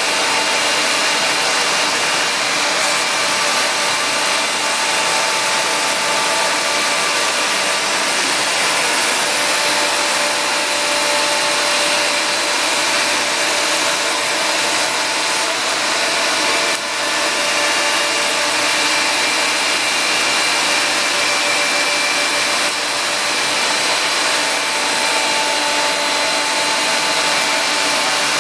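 Ash vacuum running steadily, drawing air and dust through a CNC dust skirt's exhaust tube, with faint steady whining tones over the rushing. The level dips briefly once, about two thirds of the way through.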